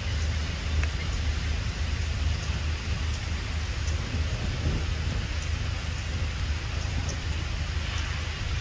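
Steady outdoor background noise: a constant low rumble under an even hiss, with faint high ticks now and then.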